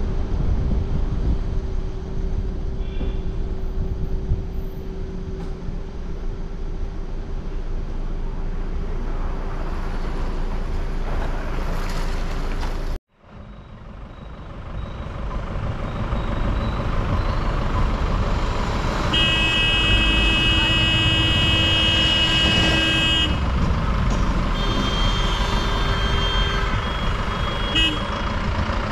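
Steady road and engine noise of a car driving, picked up by a dash cam, with the sound cutting out for about a second near the middle. In the second half a vehicle horn sounds for about four seconds, followed by a few shorter honks.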